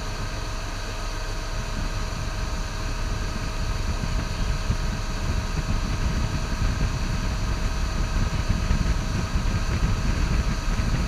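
Motorboat engine running steadily at speed while towing a water skier, with the rush of the boat's wake.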